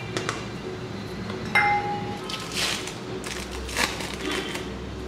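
Kitchen handling noises: a sharp clink that rings briefly about a second and a half in, then crinkling of a thin plastic wrapper as a cheese slice is peeled from its packet.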